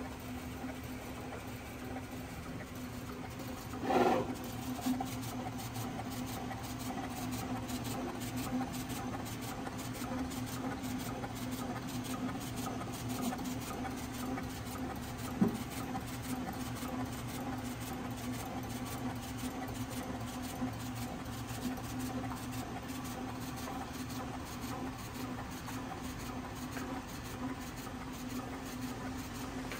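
SAGA A3 Pro sheet-fed decal cutting plotter running as its knife head cuts a holographic sticker sheet: a steady motor hum, with a brief louder sound about four seconds in and a single sharp click about halfway through.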